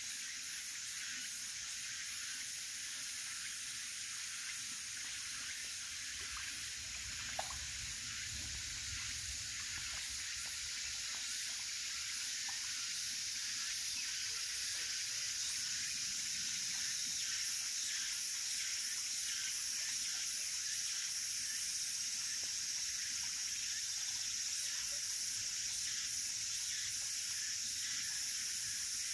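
Steady high-pitched outdoor background hiss, with fine rapid pulsing in the first few seconds and a faint low rumble with a small click about seven to nine seconds in.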